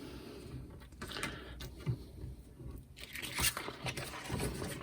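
Cardstock being handled and peeled off a cutting mat: light, irregular rustles and scrapes of paper.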